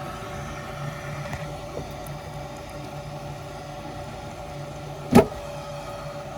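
Trane S9V2 gas furnace running with a steady mechanical hum, water backed up inside it from a clogged condensate drain line, the cause of its pressure switch error. A single sharp knock about five seconds in.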